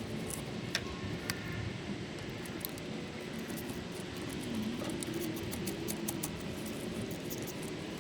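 Irregular light clicking and rattling of small parts being handled, such as wiring and connector pieces, over a steady background noise.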